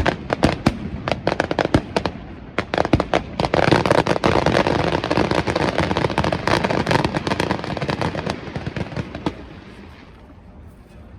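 Fireworks going off: a fast run of sharp bangs, thickening about three seconds in into a dense crackling barrage that dies away near the end.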